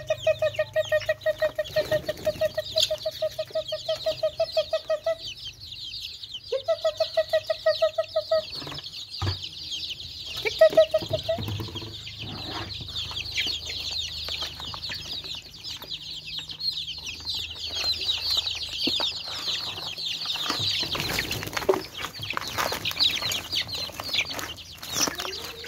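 Many young chicks peeping constantly, growing busier in the second half as they crowd together to feed. Over the peeping, a hen clucks rapidly and evenly, about six clucks a second, in two runs of a few seconds near the start and a short one about ten seconds in.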